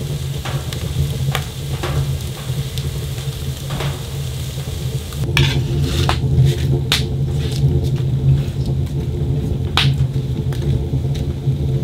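Diced peppers sizzling in a frying pan on a woodstove, with scattered crackles from the wood fire. From about five seconds in, spinach leaves are dropped into the hot pan, adding sharper pops and clicks.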